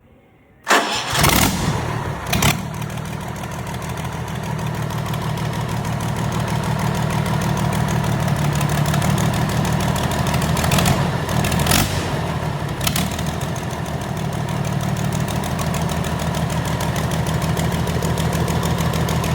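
Kirloskar diesel engine starting about a second in, just after its overhaul. It fires with a few loud bangs, then settles into steady running with a rapid, even firing pulse. A few sharp knocks come a little past halfway.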